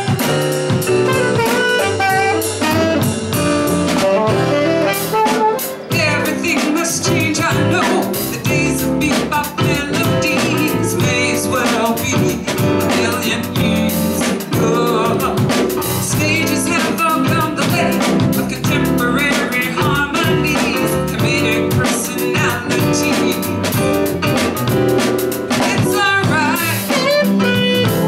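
Jazz-blues band playing a song, with drum kit and horns.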